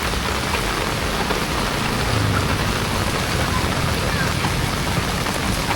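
Heavy rain falling steadily, an even dense hiss with no break.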